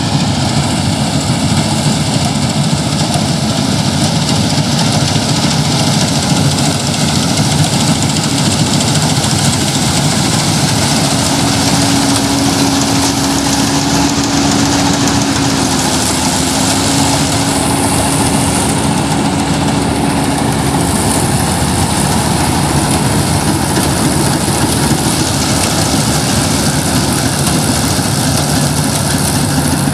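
Farm machine's engine running steadily at harvest, a loud, even noise with a low hum. For about ten seconds in the middle, a higher steady tone joins in.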